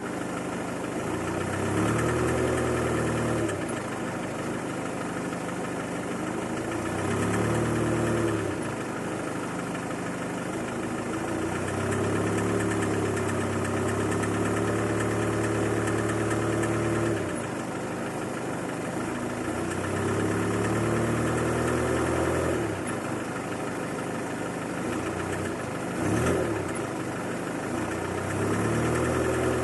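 Volkswagen 1.6 TDI (CXXB) four-cylinder diesel engine idling and being revved up several times, each time held briefly at higher revs before dropping back to idle, with a brief sharp blip a little before the end. It runs with the nailing, rattling noise the owner hears only when the engine is cold, with no fault codes stored.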